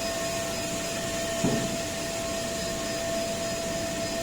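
Brush washing machine running: a steady mechanical drone with a constant whine over it. A brief knock comes about a second and a half in.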